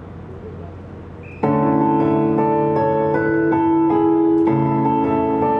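A pop song's backing track begins over a stage PA system about a second and a half in, coming in suddenly and loudly with keyboard chords; before it there is a faint murmur of voices.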